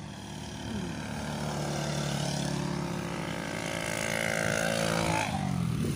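Engine of a road vehicle passing by: a steady drone grows louder, then its pitch drops as it goes past about five seconds in.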